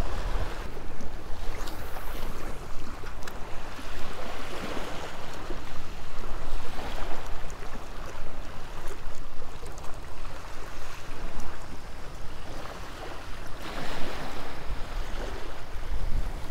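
Small waves washing against the jetty rocks, with wind rumbling on the microphone. The wash swells a few times.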